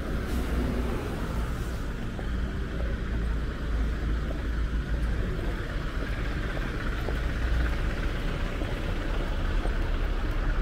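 Steady road-traffic noise from a busy city avenue, with a deep low rumble underneath.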